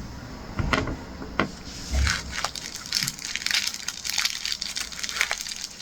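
Plastic packaging rustling and crinkling, with scattered small clicks and taps, as small items are handled and unpacked.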